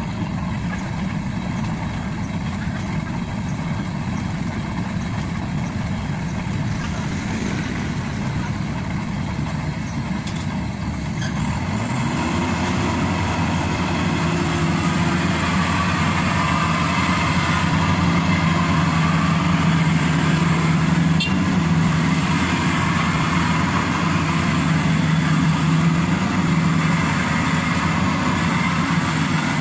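Maxxi Bimo Evo Xtreme crawler combine harvester's diesel engine running steadily. About twelve seconds in it speeds up and grows louder, then holds at the higher speed as the machine moves into the crop.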